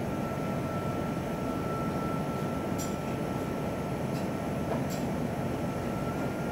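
Steady machine running noise with a thin high whine held throughout, and a few faint clicks.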